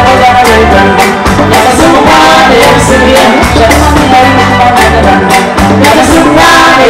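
Live band music: a woman sings lead into a microphone over backing singers, with drums and a bass line keeping a steady beat.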